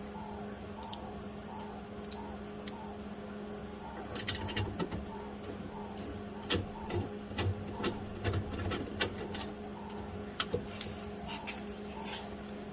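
Irregular metallic clicks and knocks of hand tools working at a small bolt inside a truck door that is hard to get started. They cluster from about four seconds in to near the end, over a steady background hum with a faint chirp repeating about twice a second.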